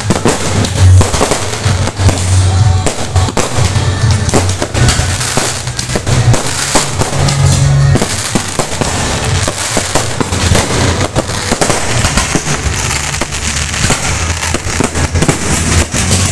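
Fireworks display going off at close range: a continuous barrage of bangs and crackling stars with no let-up. Music plays underneath.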